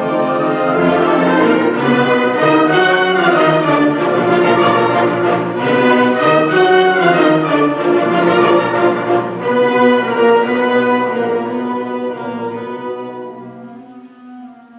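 Orchestral music, led by bowed strings, fading down to a few held notes near the end.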